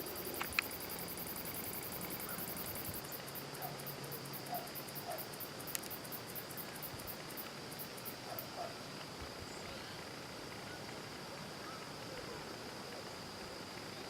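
Insects calling: a steady high cricket-like drone, with a faster pulsing, very high trill over it that stops about eight seconds in, and a few faint short chirps.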